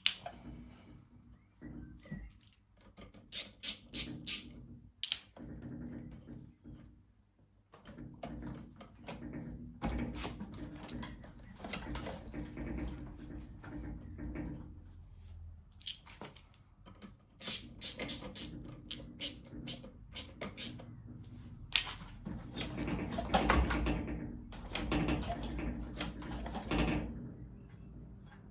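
Irregular clicks, knocks and scraping from hand tools and small metal parts as a lawn mower's carburetor and its fittings are reassembled and tightened. The busiest, rasping stretch comes in the last third.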